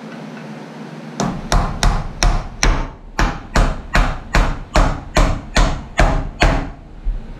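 Claw hammer driving a nail through a block of lumber into a framing board: a steady run of about fourteen hammer blows, roughly three a second, starting about a second in.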